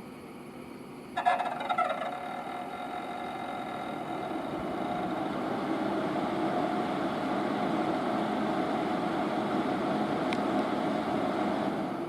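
Cooling fan of a VP-1000 unit starting up about a second in with a sudden whine, then running with a steady whir and a held tone that builds over the next few seconds.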